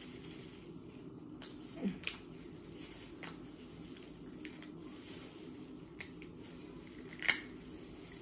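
Cooked crab legs being snapped and pulled apart by gloved hands: a few short, sharp cracks of shell scattered through, the loudest near the end, over a steady low hum.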